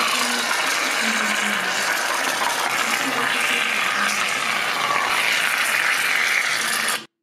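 Aerosol can spraying foam in one long, steady hiss that cuts off suddenly near the end.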